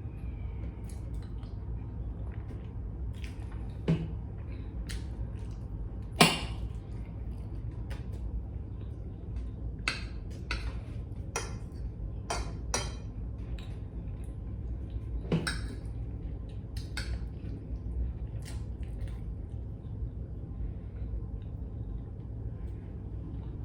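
Utensils clinking and tapping against a plate during a meal: a dozen or so scattered sharp clicks, the loudest two about four and six seconds in, over a steady low hum.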